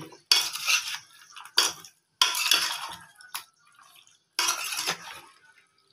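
A spoon scraping and knocking against a steel bowl while stirring raw chicken in a wet yogurt-and-spice marinade, in five separate strokes that each fade quickly.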